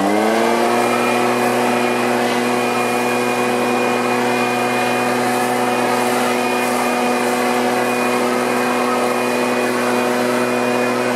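Two-stroke engine of a Stihl backpack leaf blower reaching full throttle right at the start, then running steadily at high speed with an even pitch and the rush of air from the nozzle. The carburetor has just been tuned.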